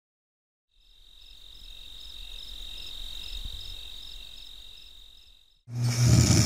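Steady, high-pitched cricket chirring, pulsing about three times a second, fades in and out. Near the end a much louder, deep rasping noise cuts in suddenly: the Yorkshire Terrier's snoring starting.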